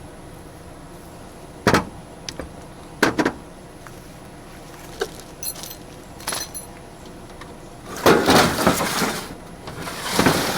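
Tools and their packaging being handled: a few sharp knocks and clicks, then longer noisy clattering about eight seconds in and again near the end, over a steady low hum.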